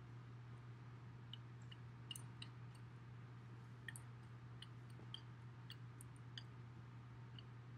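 Near silence: room tone with a steady low hum and a dozen or so faint, small clicks scattered irregularly through it.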